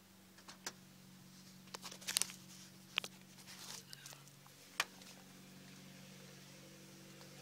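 Faint, steady idle of the 1988 MR2 Supercharged's four-cylinder engine, breathing through an SRT4 exhaust with no mufflers, under a run of sharp clicks and knocks from handling up close. The knocks come between about half a second and five seconds in, the loudest about two, three and nearly five seconds in.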